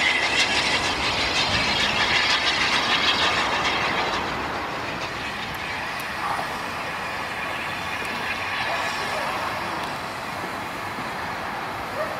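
Bulleid Battle of Britain class steam locomotive running on the track, wheels clattering over the rails. The sound drops about four seconds in to a fainter, more distant train sound.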